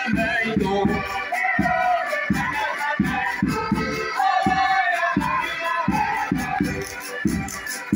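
Portuguese folk dance music: a melody over a steady low beat about two times a second, with light percussion ticking in time.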